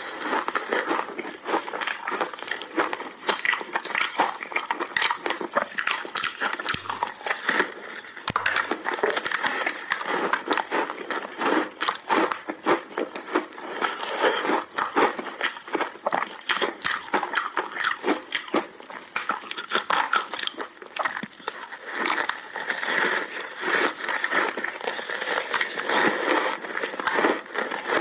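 Layered mixed-berry ice being bitten and chewed: a dense, unbroken run of crunching and crackling as the frozen block breaks up between the teeth.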